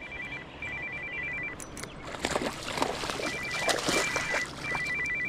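An electronic ringer trilling in short bursts of two high tones in rapid alternation, with a noisy spell of splashing in the middle.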